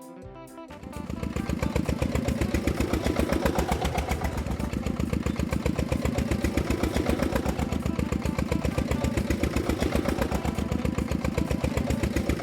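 Engine sound of a grader running steadily with a fast, even putter, starting about a second in, as the toy grader pushes sand with its blade.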